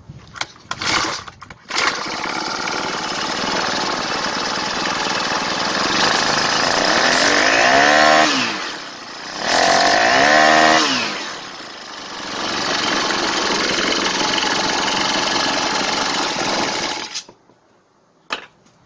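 Honda four-stroke brush cutter engine starting on the recoil starter after a few short pulls, then running steadily, revved up and back down twice, and cut off. This is the start test after the ignition coil's air gap has been reset to a business-card thickness, and the engine fires and runs.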